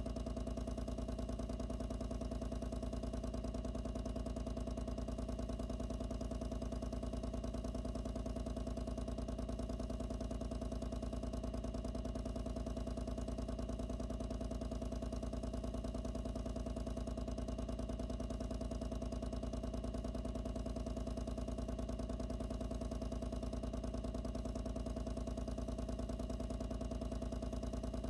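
The pump that drives the ink-and-water flow, running steadily as a continuous hum with a deep rumble, recorded from inside the box that houses it.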